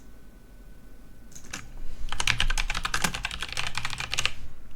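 Typing on a computer keyboard: a single key click about a second and a half in, then a quick run of keystrokes for about two seconds.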